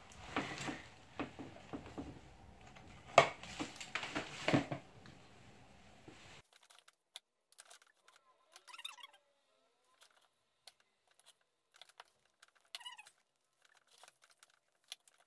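Hands working onion rings in breadcrumbs and setting them on a baking tray: a run of light taps, clicks and rustles, the loudest about three seconds in. After about six seconds the background drops away abruptly and only faint scattered ticks and rustles remain.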